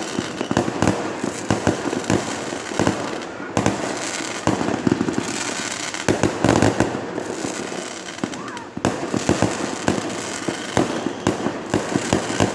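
Fireworks display: a dense, continuous barrage of rapid bangs and crackling, with short lulls about three and a half seconds in and near the nine-second mark.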